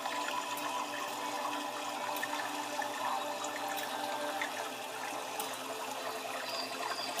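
Tabletop water fountain running: a steady trickle of water down a textured slate-style wall into a basin of pebbles.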